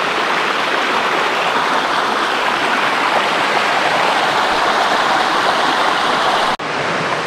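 Water of a small jungle stream rushing and splashing down a rocky cascade, a steady rush of running water that breaks off for an instant near the end.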